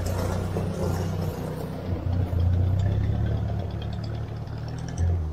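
1957 Ford 600-series tractor's four-cylinder gasoline engine running on its newly fitted aftermarket carburetor as the tractor drives past. The low, steady engine note swells as it passes close and then carries on as the tractor pulls away.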